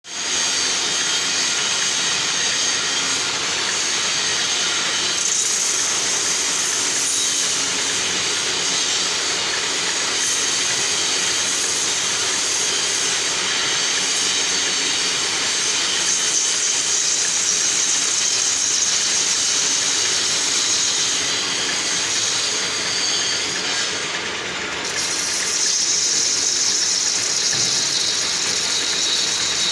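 Metal lathe running and machining a steel shaft: a steady mechanical noise with a strong high hiss that swells and eases a few times as the cut goes on.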